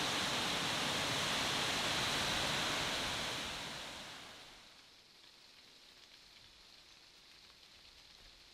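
Steady rush of a waterfall that fades out about four seconds in, leaving only a faint hiss.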